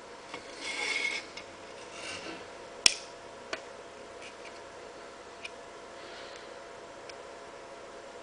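Small clicks and rubbing from fingers working a tiny antenna cable connector onto a mini-PCI wireless card on a circuit board, with a stretch of rubbing about a second in and one sharp click a little before the three-second mark, then a few faint ticks.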